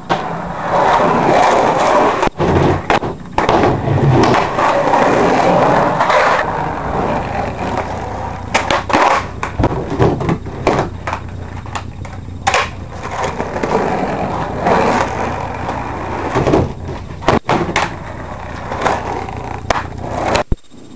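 Skateboard wheels rolling on a hard indoor floor, with repeated sharp clacks and slaps of the board hitting the floor on tricks and landings.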